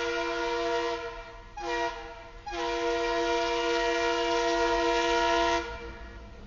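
EMD GP38-2 diesel locomotive's air horn sounding a multi-note chord for a grade crossing: the end of a long blast, a short blast about a second and a half in, then a long blast of about three seconds. Only a low rumble of the locomotive is left near the end.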